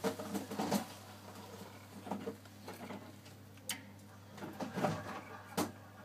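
Potterton Kingfisher 2 gas boiler running, a steady low hum under scattered clicks and knocks from hands handling its casing and controls.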